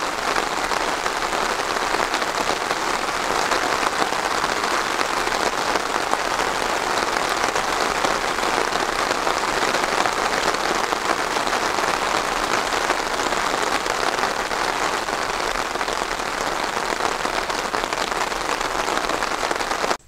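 Steady rain falling: an even, dense patter of many small drops.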